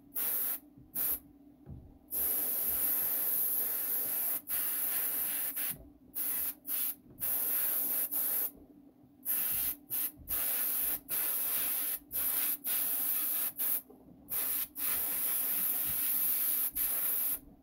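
Paint being sprayed onto a prop: a hiss that starts and stops sharply about a dozen times, with bursts lasting from a fraction of a second to a few seconds, as the spray trigger is pressed and released.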